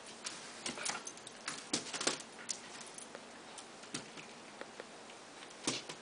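Faint, irregular clicks and light scuffling as a corgi puppy and a kitten play over a feather wand toy, the puppy mouthing the toy.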